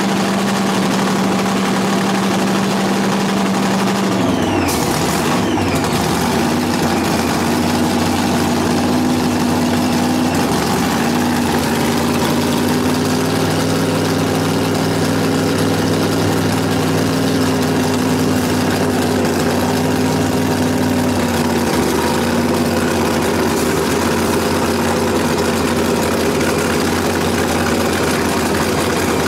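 Pro Mod drag car's V8 idling loudly through its warm-up, a steady engine note that dips and resettles about four seconds in.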